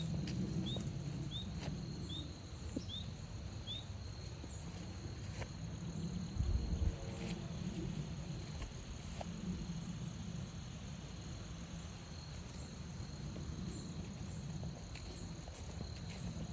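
Crickets trilling steadily while footsteps move along a forest trail. In the first few seconds a bird gives a quick series of short rising chirps, about three a second.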